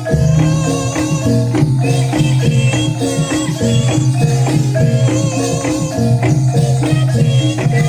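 Javanese jaranan gamelan music: metal-keyed instruments strike short repeated notes in an even rhythm, with jingling rattle percussion over a steady low hum.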